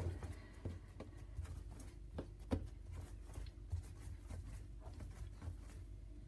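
Hands rolling a log of beetroot and plain dough on a kitchen countertop: faint, irregular soft taps and thumps of palms and dough against the counter.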